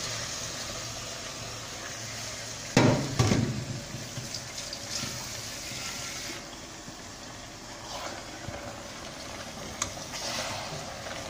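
Water running from a kitchen tap into a small metal pot, a steady hiss, with a couple of loud metal clanks about three seconds in.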